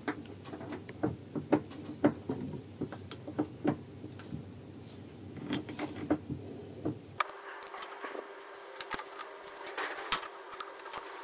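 Irregular light clicks and knocks of metal handling: the cast alloy housing of a Kugelfischer fuel-injection warm-up regulator being set into and clamped in a steel bench vise.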